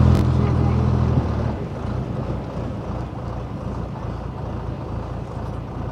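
Boat engine running with a steady low drone that eases off about a second and a half in, leaving a lower rumble with wind on the microphone.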